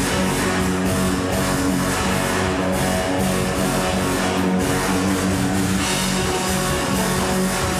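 Loud rock music with electric guitar and drums, playing steadily.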